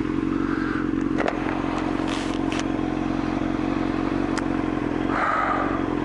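Sport motorcycle engine idling steadily at a standstill, with a few light clicks.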